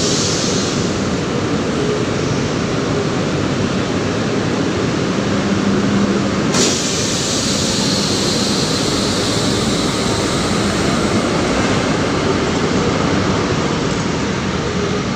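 LRT Line 1 first-generation light rail train pulling out of the platform: a steady rumble of the cars rolling past. About six and a half seconds in a sudden hiss sets in, and a faint high whine follows as the train gathers speed.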